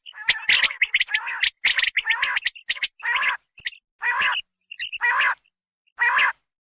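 Common quail calls played as a spring hunting lure. A rapid string of short clicking, raspy notes gives way to separate raspy calls, each under half a second, repeated about once a second.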